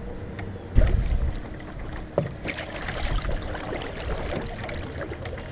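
Canoe coming in to the put-in: a heavy thump on the hull about a second in, then knocks, scraping and water splashing around the boat.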